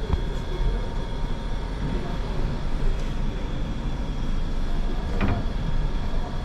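Steady low mechanical rumble with a faint steady whine over it, and a single knock about five seconds in.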